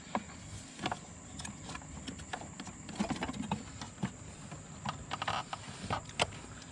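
Irregular clicks and knocks of a mass airflow sensor and its intake fittings being worked into place by hand, a tight fit.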